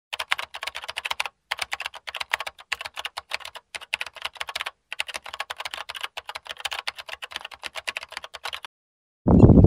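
Keyboard typing: quick clicks, about ten a second, in runs broken by short pauses, with a longer pause near the end.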